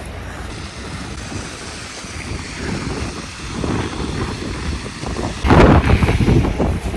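Wind buffeting the microphone outdoors in a snowstorm, a steady low rumble that gets louder about five and a half seconds in.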